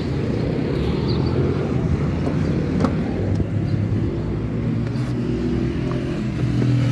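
An engine running steadily at idle, a low even hum that holds its pitch.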